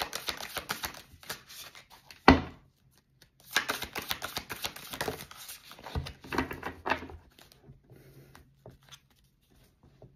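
Tarot cards being shuffled by hand: two spells of rapid papery flicking, with a sharp knock about two seconds in and another near six seconds.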